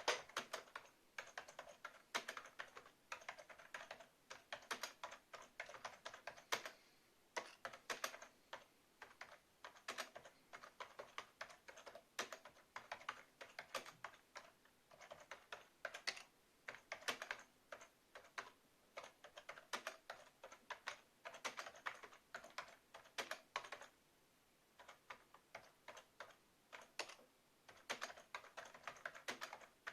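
Typing on a Sun Type 5c rubber-dome keyboard: quick, irregular runs of key presses with short pauses between them, and a brief lull about three-quarters of the way through.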